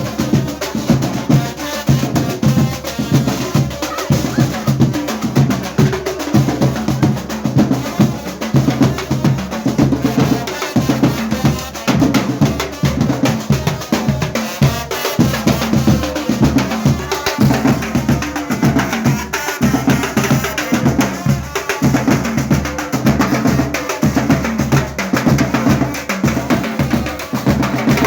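Loud music with a steady drum beat and heavy bass pulses, played through a sound system during a sound check.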